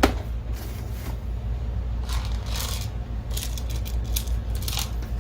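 Plastic top cover of an NEC projector being fitted onto the chassis: a sharp click at the start, then scraping about two seconds in and a few light clicks as the cover seats, over a steady low hum.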